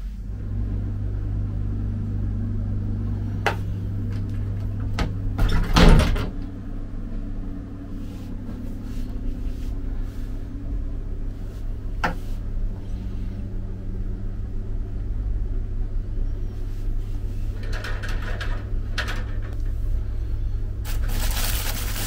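Steady low hum throughout, with the clicks and knocks of a wooden wardrobe door being handled, including a louder bump about six seconds in and a click as the door opens about twelve seconds in. Near the end, plastic wrapping crinkles as packaged slippers are picked up.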